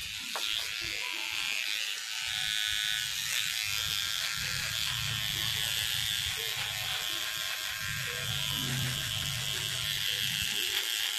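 Electric beard trimmer buzzing steadily as it trims the beard along the jaw.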